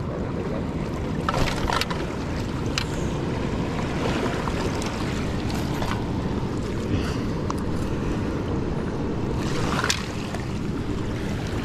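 Steady rush of wind on the microphone mixed with river water washing against a gravel bank, broken by a few sharp clicks and knocks, several in the first three seconds and one near the end.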